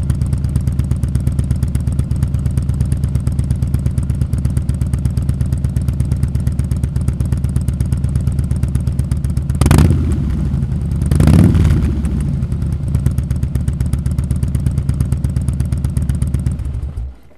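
Harley-Davidson V-twin idling through Cobra 3-inch slip-on mufflers with a deep, throaty, pulsing exhaust note. The throttle is blipped twice, about ten and eleven and a half seconds in, and the engine is switched off near the end.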